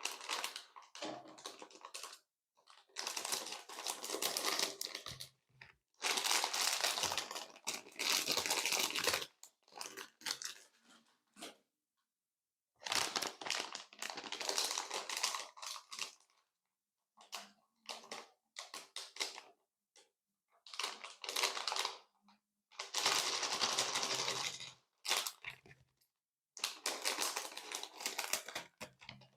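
Transparent slime being squished, pressed and stretched by hand, giving sticky crackling and clicking. It comes in bursts of one to three seconds, broken by dead silences.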